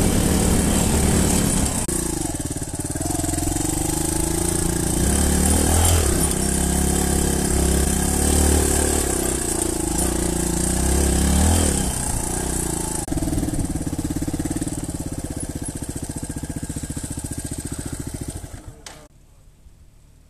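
Dirt bike engine running under load on a trail climb, revving up and down with the throttle, with steady wind hiss on the microphone. About a second before the end the engine sound cuts off as the bike comes to a stop.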